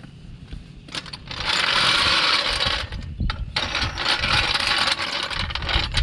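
Two long bursts of hissing, the first about a second and a half long and the second about two seconds, with a few sharp clicks between them.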